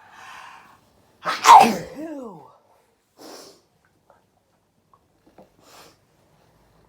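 A person sneezing once: a short breath in, then one loud sneeze about a second and a half in that ends in a voiced sound falling in pitch. A few faint, short breath sounds follow.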